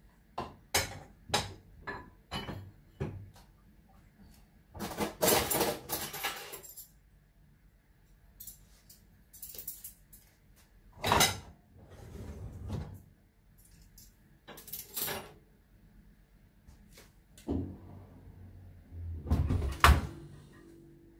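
Household handling sounds: a quick run of light knocks and clicks, a noisy stretch of about two seconds, then several separate knocks and thuds, the loudest near the end.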